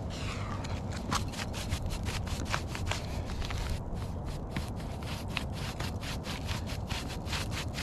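A brush sweeping debris off asphalt roof shingles with quick, repeated scraping strokes, about five a second, pausing briefly near the middle.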